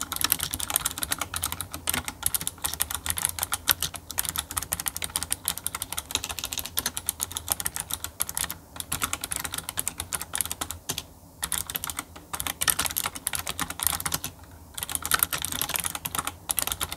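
Fast, continuous typing on a Razer Pokémon Pikachu edition keyboard with mecha-membrane switches, with a few short pauses. The keys give a click-clack like light mechanical switches, made by a sleeve around each membrane switch rather than by a true mechanical switch.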